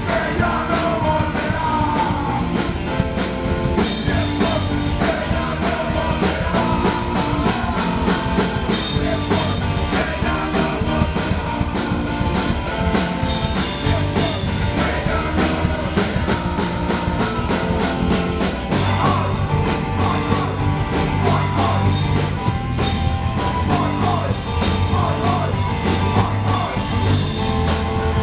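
Live rock band playing: a singer's vocals through a microphone over electric guitar, bass guitar and a drum kit, loud and continuous.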